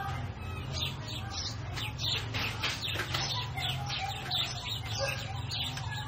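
A field recording of many short chirping calls, played through a Bastl Thyme effects unit over a steady low hum.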